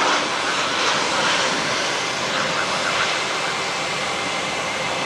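Boeing 737-700's CFM56-7B turbofan engines on final approach for landing: a steady jet rush with a thin high whine running through it.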